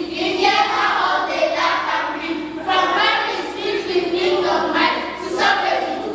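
A group of children singing together in unison, in long held phrases.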